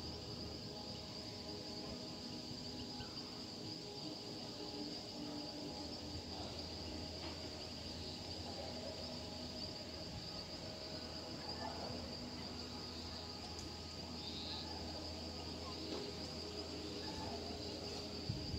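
Crickets chirring in a steady, high-pitched chorus that holds unbroken, over a faint low hum. A brief knock sounds near the end.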